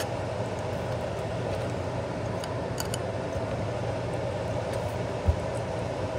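Steady fan-like background hum, with a few faint light ticks and one short low thump a little after five seconds in.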